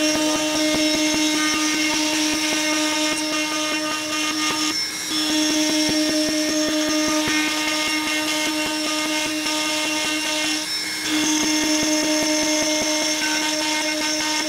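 Three-axis CNC machine milling quarter-inch aluminum plate: a steady, high machining whine from the spindle and cutter, with two brief dips in the cut about 5 and 11 seconds in.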